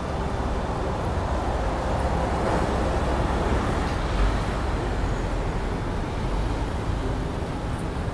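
Steady city road traffic noise: a continuous hum and wash of passing vehicles, with no single event standing out.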